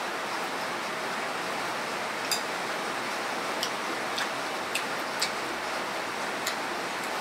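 Steady hiss of rain falling, with a few faint, scattered clicks from skewering and eating battered quail eggs.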